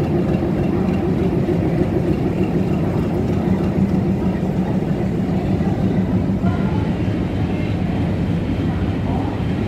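Diesel shunting locomotive's engine running with a steady low drone as the locomotive moves along the platform.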